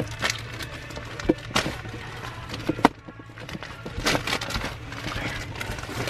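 A run of sharp clicks and crackles from something being handled close to the microphone, over music playing in the background.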